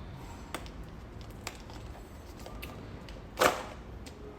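Handling noise from a blind box being opened: scattered small clicks and rustles, with one short, louder tearing rustle about three and a half seconds in.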